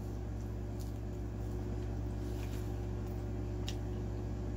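Quiet close-up chewing of a boneless chicken wing, with a few faint soft mouth clicks, over a steady low hum.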